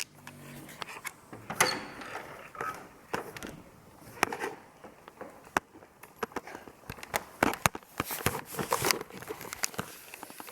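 Irregular clicks and knocks of hard plastic parts of a cordless vacuum cleaner being handled and fitted together.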